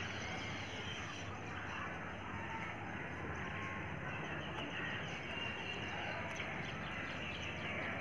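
Outdoor ambience: small birds chirping in the background over a steady low background noise, the chirps growing busier partway through.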